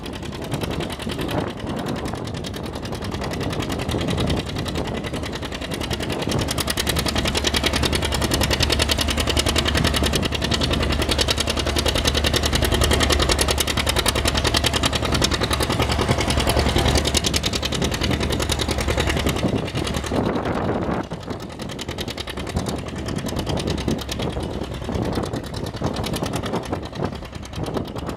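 Antique John Deere two-cylinder tractor engine working hard under load as it drags a weight-transfer pulling sled, building and holding a heavy steady pull, then dropping off suddenly about three quarters of the way through as the pull ends and the throttle is backed off.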